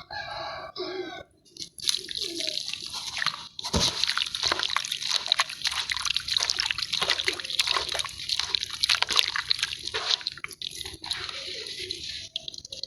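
Sand-cement cakes crumbling in water: a dense, continuous crackle and fizz of many tiny breaks, with wet sloshing, starting about two seconds in. A brief pitched squeak comes just before it.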